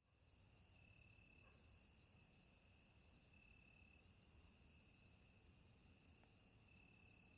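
A steady high-pitched continuous tone, with fainter higher and lower tones alongside it, holding unchanged throughout.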